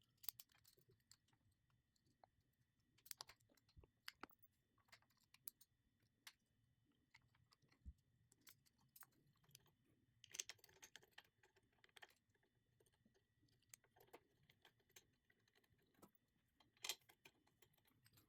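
Near silence with faint, irregular clicks and taps of small parts and tools being handled while a limit switch is fitted to an electric pallet jack.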